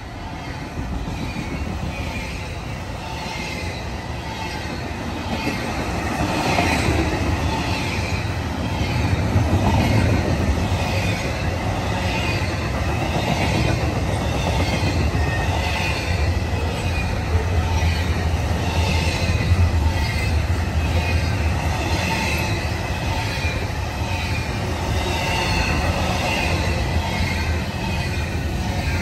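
Norfolk Southern freight train rolling past: a steady low rumble of wheels and cars with a regular rhythm of clicks from the wheels, growing louder over the first several seconds and then holding.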